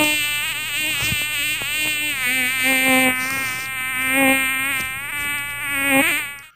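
A flying insect's wings buzzing close to the microphone: a loud, pitched drone that wavers up and down in pitch and cuts off suddenly near the end.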